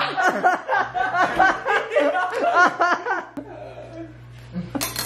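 Several people laughing hard in quick, repeated bursts for about three seconds, then an abrupt cut to a quieter room with a brief hiss near the end.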